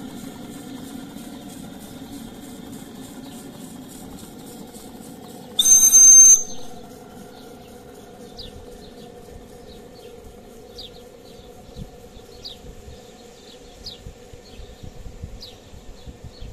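Model steam launch's steam engine running steadily with a fine regular tick. About six seconds in comes one short, high steam-whistle toot, the loudest sound. After it, short falling bird chirps come every second or so over the engine.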